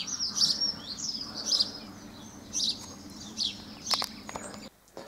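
Small wild birds chirping and twittering in short, high-pitched phrases over a low steady hum, with a couple of sharp clicks near the end before the sound cuts off suddenly.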